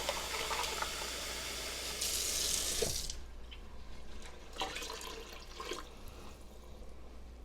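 Kitchen faucet running water into an emptied tomato-sauce can to fill it. The flow grows louder just before it is shut off about three seconds in, and a few faint clinks follow.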